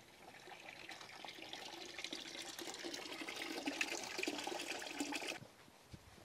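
Water running from a rain barrel spigot into a watering can, filling it. The sound grows louder and cuts off about five seconds in.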